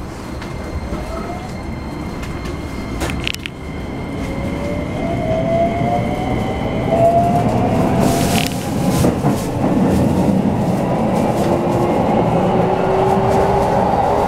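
Keikyu New 1000 series electric train pulling away from a standstill, heard inside the passenger car: its Toyo hybrid SiC VVVF inverter and traction motors whine in several tones that climb in pitch from about four seconds in, over a growing rumble of wheels on rail as it gathers speed. A couple of sharp clicks sound along the way.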